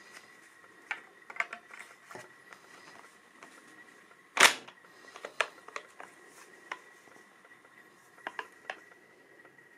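Metallic clicks from handling the action of a Baikal IZh-18 single-barrel break-action shotgun and an inert dummy cartridge, with one much louder sharp click about four and a half seconds in. Near the end, three small quick clicks come from the ejector selector slide on the receiver.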